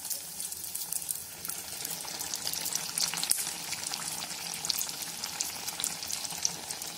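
Neyyappam (rice-and-jaggery batter) deep-frying in hot sunflower oil in an iron kadai: a steady sizzle with many small pops and crackles.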